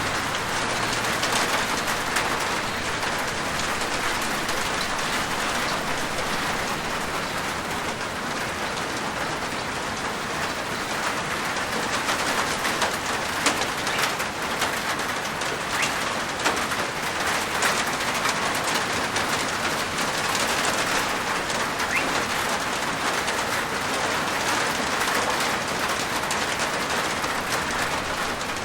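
Steady rain falling on a rooftop: a dense, even patter with single louder drops tapping now and then.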